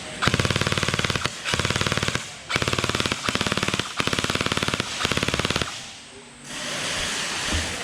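Electric gel blaster (an Azrael Venom M4-style blaster) firing full-auto in about six quick bursts of rapid clicking shots, then stopping for the last couple of seconds.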